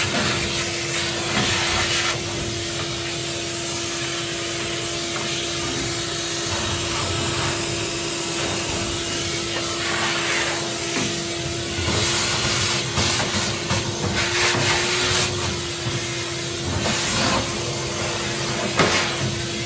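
Vacuum cleaner running with a steady hum, its hissing rush swelling and falling away again and again as the nozzle sucks up loose dirt.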